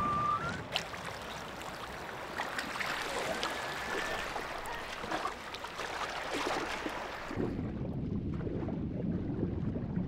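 Sea water splashing and lapping at the surface, with many small splashes. About seven seconds in the sound turns duller as the high end drops away.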